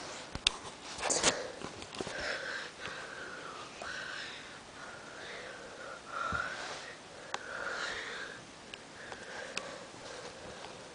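A dog sniffing close to the microphone: a long run of short snuffling breaths at its nose, louder in the first second or so, with a few sharp clicks in between.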